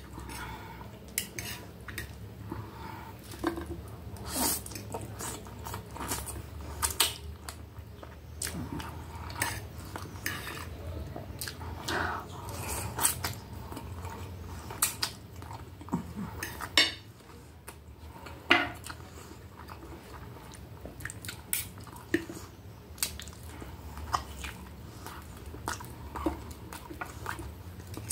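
Fork and knife clinking and scraping against a dinner plate at irregular intervals while food is cut and picked up, with chewing between the clinks.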